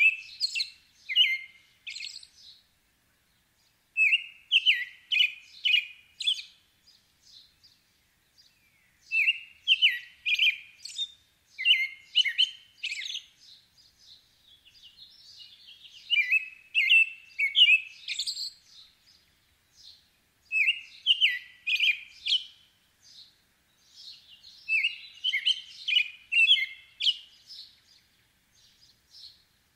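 American robin singing: about six bouts of short whistled phrases, several notes each, with gaps of a second or more between bouts. Fainter high squeaky notes are mixed in.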